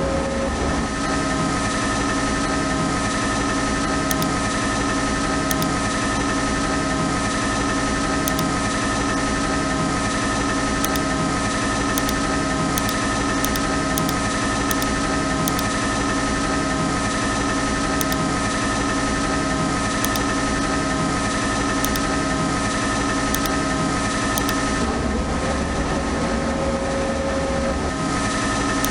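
CNC lathe running steadily: a machine hum with several held tones and a low pulse repeating a little less than once a second.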